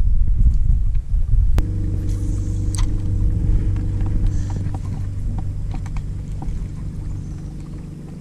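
A low rumble, then about one and a half seconds in a click and a bow-mounted electric trolling motor starts humming steadily, slowly fading, with small ticks over it.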